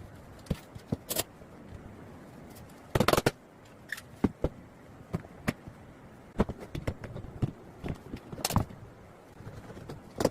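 Woodworking with hand tools: scattered sharp taps and clicks on wood, with two louder, longer scrapes, about three seconds in and again after eight seconds.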